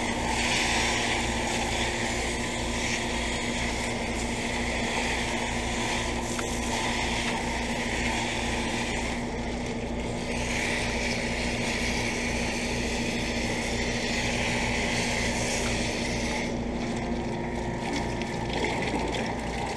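Central air conditioner outdoor unit running with a steady hum, its compressor and fan going, under a higher hiss that breaks off briefly twice, about halfway through and near the end.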